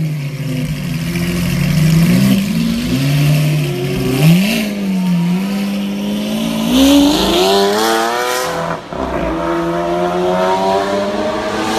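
Lamborghini Aventador LP700-4's V12 through an Armytrix valved exhaust, accelerating. The revs rise and fall for the first few seconds, then climb steadily, drop sharply at a gear change about three-quarters of the way through, and climb again.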